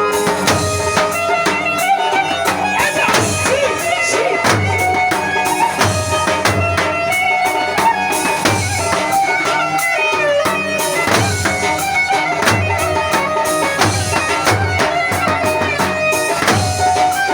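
Traditional Arabic-style music: a reedy wind melody over a steady, regular drum beat.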